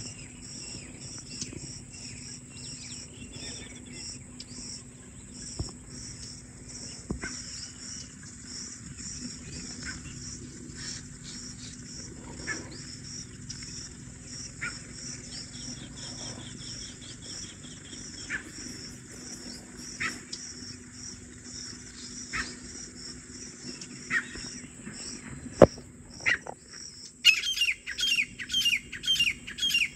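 Grey francolins calling over a steady chorus of crickets: scattered single calls every couple of seconds, then near the end a loud, fast run of repeated calls, about two or three a second.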